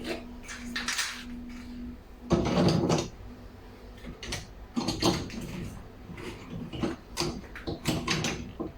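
Dishwasher racks being handled and slid into place on their rails: a series of knocks and clicks, with a longer rolling scrape about two and a half seconds in.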